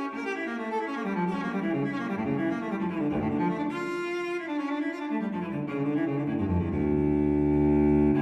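Background music: a solo cello playing a slow melody that steps downward, ending on a long, low held note, the loudest part.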